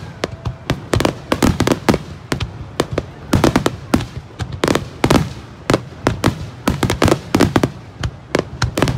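Aerial firework shells bursting in a dense barrage, several sharp bangs a second, some much louder than others.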